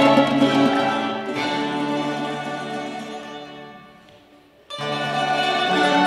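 Ensemble of farkaš-system tamburas playing a traditional Dalmatian song with strummed and tremolo-picked chords. A sustained chord dies away over about three seconds, there is a brief hush, and the whole ensemble comes back in together about four and a half seconds in.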